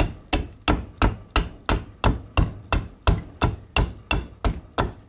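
Curved hand adze chopping into a green black walnut branch on a chopping stump, levelling it off across the grain: a steady run of sharp blows, about three a second.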